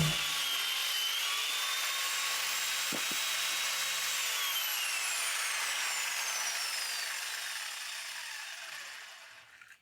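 Handheld power grinder running with a high whine and hiss, then switched off, its pitch gliding down and fading as it spins down. A short knock sounds about three seconds in.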